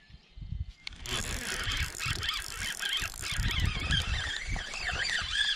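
Spinning reel buzzing and squealing from about a second in, with fine rapid clicking, as a hooked bass is fought and reeled in; low handling knocks underneath.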